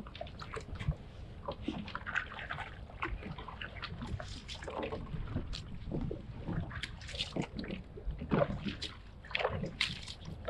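Choppy bay water splashing and sloshing against the hull of a Sea-Doo Fish Pro personal watercraft, with many irregular short knocks and splashes.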